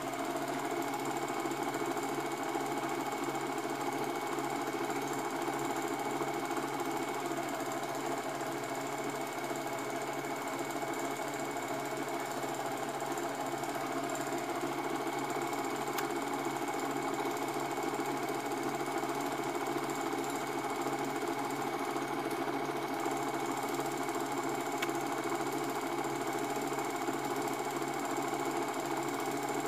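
Cine film projector running: a steady mechanical whirr and chatter from the film transport that goes on unchanged.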